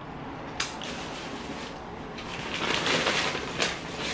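Paper takeout bag rustling and crinkling as a hand rummages inside it. There is a sharp crinkle about half a second in, the rustling grows louder in the second half, and another sharp crinkle comes near the end.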